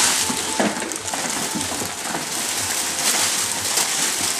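Thin plastic bags rustling and crinkling as they are handled and pulled open, an irregular crackle.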